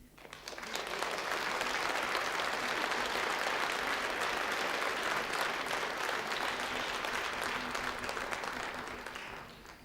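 Theatre audience applauding: steady applause that builds over the first second, holds, and dies away near the end.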